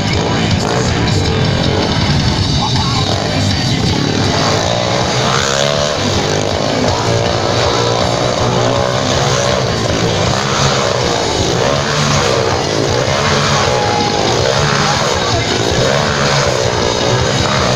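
Motorcycle engines running hard inside a steel Globe of Death cage, their pitch rising and falling about once a second as the riders loop round the sphere. Rock music plays along.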